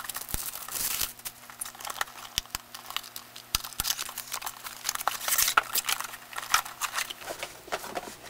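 A product box being opened and its packing handled: crinkling and rustling of plastic and paper, with many small clicks and taps.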